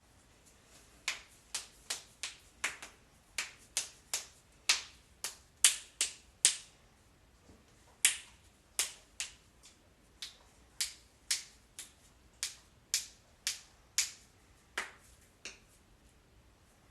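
Joints cracking: a series of about thirty sharp pops at an irregular pace, some coming in quick pairs.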